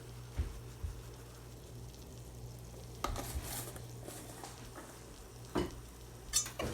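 Food sizzling faintly in a frying pan on the stove, with a few light knocks scattered through.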